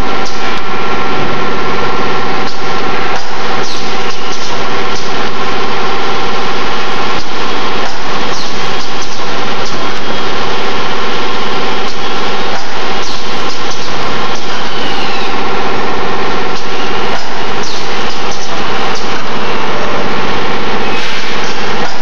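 Automatic steel wire ring forming and welding machine running: a steady mechanical hum holding several even tones, with many short clicks and clacks.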